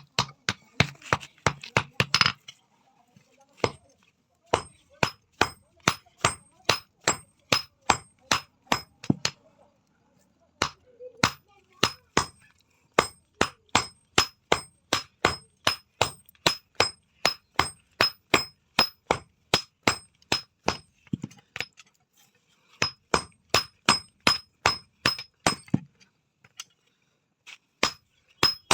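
Blacksmith's hand hammer striking steel on an anvil, about two blows a second in several runs broken by short pauses; each blow gives a bright metallic ring.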